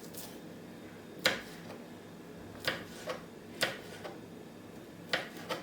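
Kitchen knife striking a cutting board while slicing small green chilies: about six sharp, separate taps at uneven spacing, roughly a second apart.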